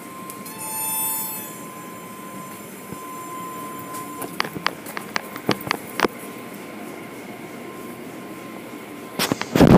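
Automated car wash machinery running behind glass: a steady mechanical rumble with a thin steady tone, and a brief whine that swells about a second in. A run of sharp clicks follows about four seconds in, and a cluster of loud knocks comes near the end.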